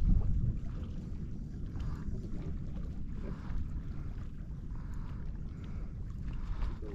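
Wind buffeting the microphone: an unsteady low rumble, with a stronger gust right at the start.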